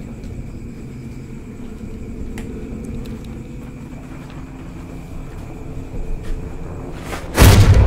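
Horror-film sound design: a low, steady ambient drone with a few faint clicks, then a sudden loud hit near the end.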